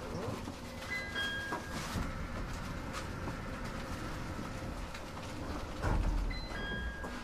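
Sendai Airport Line train heard from inside the carriage while running: a steady low rumble of wheels and motors. Two brief clusters of thin high chirping tones come about five seconds apart, and there is a heavier low thump just before the second one.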